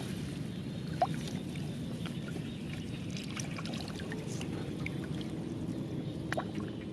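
Shallow muddy water in a flooded rice field sloshing and splashing steadily as hands grope through it for catfish, with a few short sharp splashes, one about a second in and one near the end.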